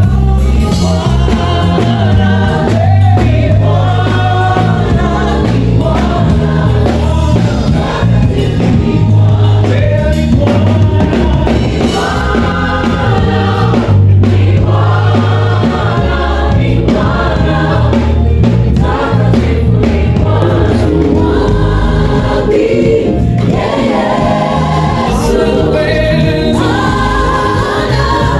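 A gospel band and choir singing together through a stadium PA system during a sound check, with a steady bass line under several voices.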